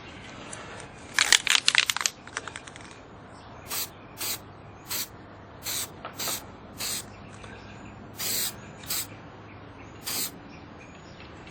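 Aerosol spray can giving about nine short hissing bursts, one a little longer than the rest, after a brief loud clatter about a second in.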